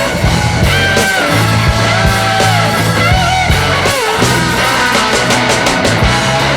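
Rock music with a lead electric guitar bending and sliding notes over a steady bass line.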